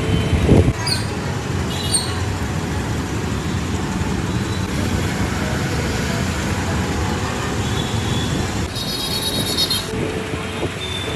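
Steady street traffic noise, with a buzzy high-pitched sound lasting about a second near nine seconds in.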